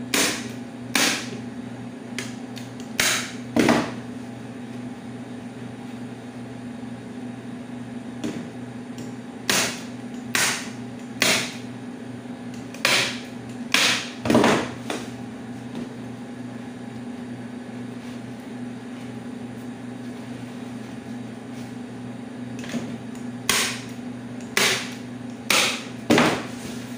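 Staple gun firing staples through upholstery fabric into a chair seat board: about fourteen sharp snaps in three groups of two to six, with pauses between. A steady low hum runs underneath.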